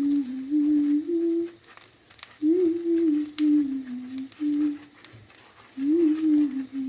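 Background music: a slow, soft, nearly pure-toned melody moving in short phrases with pauses between them, with a few faint light clicks.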